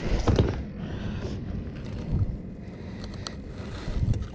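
Handling noise on a fibreglass boat: a few dull low thumps and light ticks as a small redfish is held and laid against a measuring strip on the seat.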